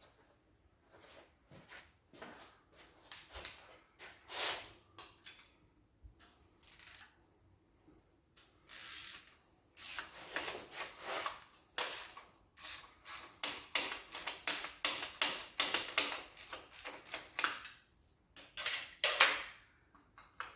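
Hand ratchet wrench clicking as it is worked in quick back-and-forth strokes to loosen engine fasteners. There are scattered clicks at first, then long runs of rapid clicking in the second half, with short pauses between them.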